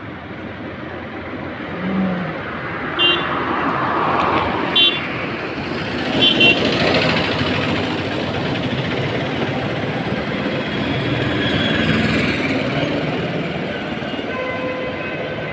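Road traffic passing, with an auto-rickshaw going by and short, high vehicle horn toots about three, five and six-and-a-half seconds in.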